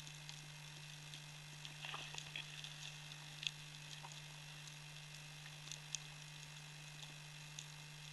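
Faint underwater crackling with scattered sharp clicks and ticks, a small flurry about two seconds in, over a steady low hum.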